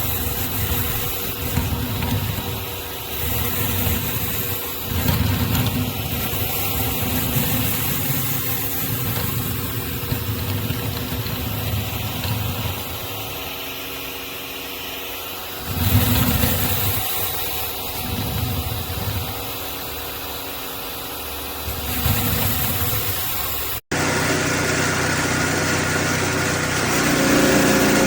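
Pressure washer running steadily, with the spinning surface cleaner's spray hissing and whooshing unevenly as it moves over the ground. A short drop-out near the end breaks the sound before it carries on.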